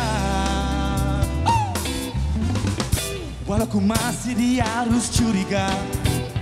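Live rock band playing: a male lead singer sings over drums, bass and electric guitar, holding a long note that drops in pitch about a second and a half in.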